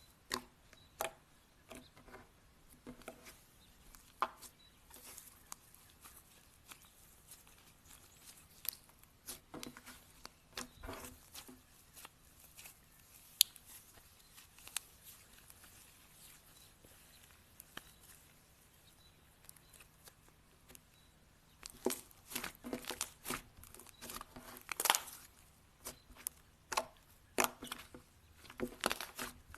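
Slime handled close to the microphone, giving irregular sticky clicks and pops. They come sparsely at first, then bunch into dense runs about three quarters of the way through and again near the end.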